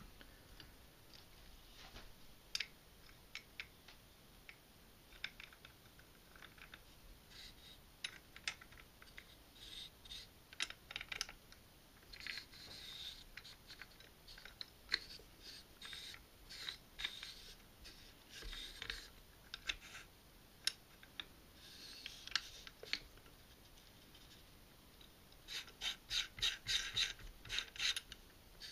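Small metal clicks, taps and scraping as AR-15 parts are handled: the buffer tube being threaded into the lower receiver and the castle nut and end plate turned on it by hand. A quick run of about a dozen clicks comes near the end.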